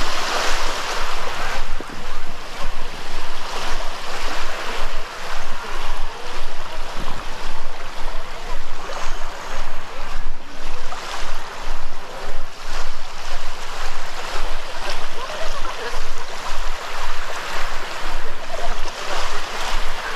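Surf washing onto a sandy beach, with a regular rhythm of footsteps in the sand.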